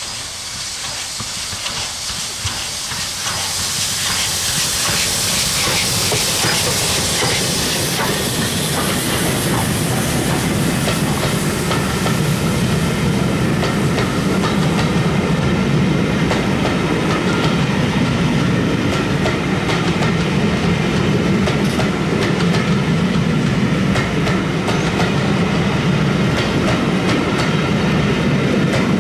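Steam-hauled passenger train passing close by. A hiss of steam builds over the first few seconds as the locomotive goes past, then the coaches roll by with a steady rumble and clicking wheels.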